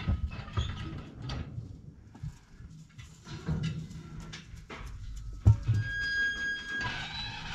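Steel cattle-pen gates and panels clanking and knocking as cattle are moved through the working pens, with one loud clang about five and a half seconds in, followed by a steady high-pitched tone for about a second.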